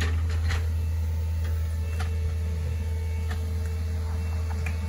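Hitachi Zaxis 48U mini excavator's diesel engine running steadily under work as it digs out a ditch, a low steady hum with a few faint clicks.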